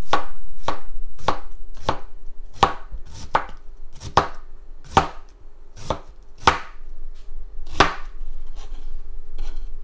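Chef's knife shredding a head of cabbage on a plastic cutting board: a steady series of chops, about one every two-thirds of a second, growing fainter near the end.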